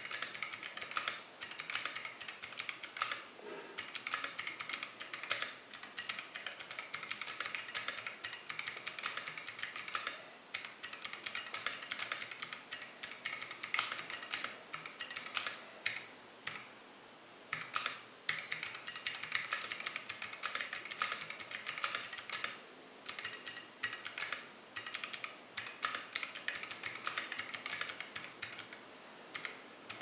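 Fast typing on a mechanical keyboard with clicky Kailh Box Navy switches and OEM-profile PBT keycaps: a dense run of sharp key clicks. It breaks off briefly about three seconds in, again about ten seconds in, and for over a second around sixteen seconds in.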